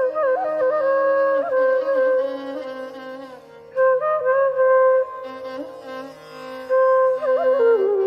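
Instrumental music: a slow melody of long held notes with sliding ornaments between them, over a low steady drone.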